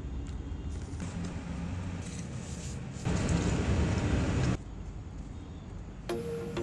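Water poured from a steel bowl into a stainless steel frying pan, a splashing pour lasting about a second and a half, starting about three seconds in. Before it there is a quieter, steady rushing noise.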